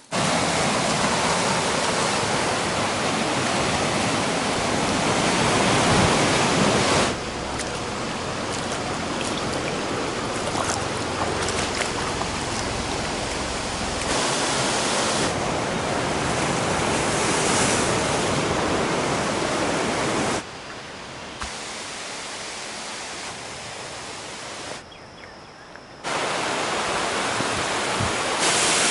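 Steady rushing of stream water over rocks, heard as a run of separate clips: the level jumps up or down at each cut, dropping lowest for about a second near the end.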